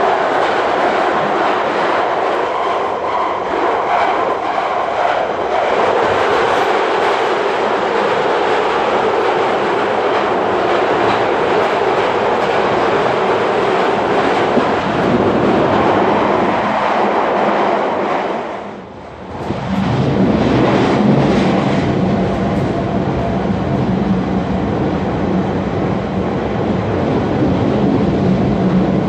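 Interior noise of a London Underground Central line 1992 stock train running at speed: a loud, steady rumble of wheels on rail and traction equipment. The noise drops briefly about two-thirds of the way through, then returns with a stronger low hum.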